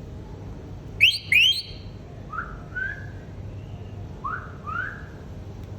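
Indian ringneck parrot whistling: two loud, quick rising whistles about a second in, then a string of softer upward-sliding whistles.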